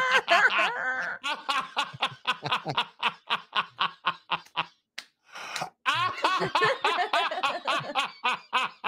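Several people laughing hard together in quick, rhythmic bursts of about five a second, with a short pause for breath about five seconds in.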